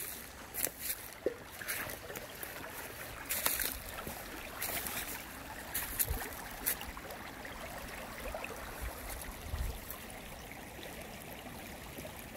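Shallow creek running steadily over gravel riffles, a continuous trickling babble. A few brief crackles stand out in the first half.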